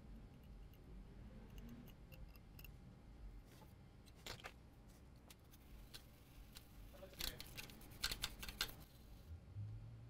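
Faint scratchy brushing of a brush scrubbing flux residue off a printed circuit board, in a few short bursts: one about four seconds in, then louder clusters around seven and eight seconds in.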